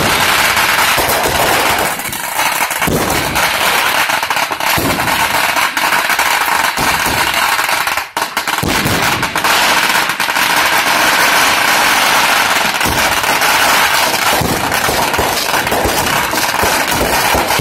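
Fireworks going off: a dense, continuous crackle of rapid pops and bangs, with a brief lull about eight seconds in.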